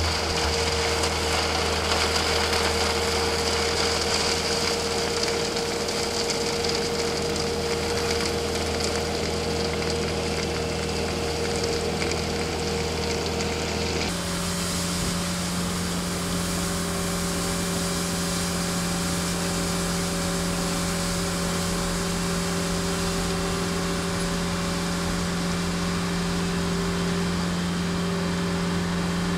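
Skid-steer loader engine running steadily while its hydraulic hopper broom spins, sweeping gravel and dirt debris into the hopper. The steady drone shifts abruptly to a different pitch about halfway through.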